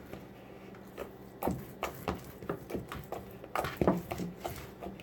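Homemade slime being handled and squeezed: a run of irregular short squelches and clicks, a few a second.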